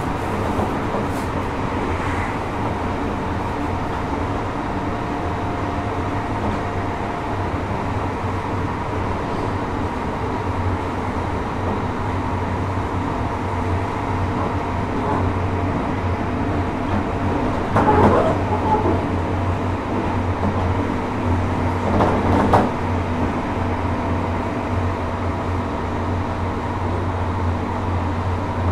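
JR Hokkaido 733 series electric multiple unit running at a steady speed, heard from inside the car: a steady hum from the traction equipment over the rolling noise of wheels on rail. Two brief clunks come about two-thirds of the way through, a few seconds apart.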